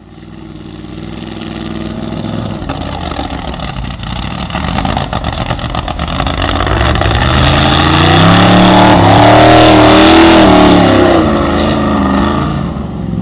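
Formula Offroad buggy's V8 engine revving hard under full load as the buggy climbs a steep sand wall. It fades in at the start, grows louder, and its pitch swings up and down repeatedly, loudest about two-thirds of the way through.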